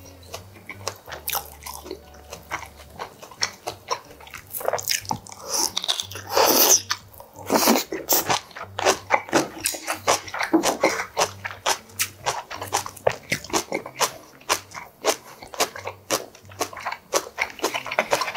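Close-miked chewing of a mouthful of cockle bibimbap: a quick, irregular run of small wet mouth clicks, with a few longer chewing stretches in the middle.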